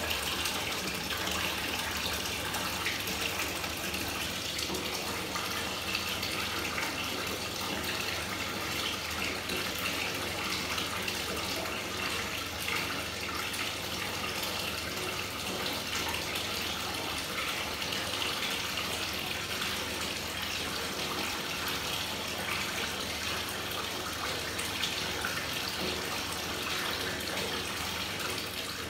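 Steady watery hiss with a fine crackle in a filled bathtub, unchanging throughout.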